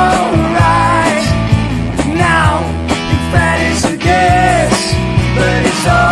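A rock band playing: two electric guitars, a drum kit with a regular beat, and a male lead voice singing over them.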